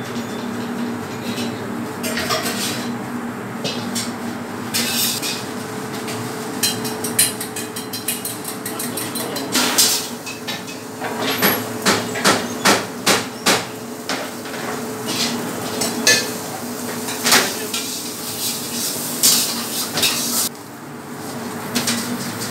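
Kitchen clatter: scattered sharp knocks and clinks of metal pans and utensils, with a quick run of about five knocks near the middle, over a steady low hum.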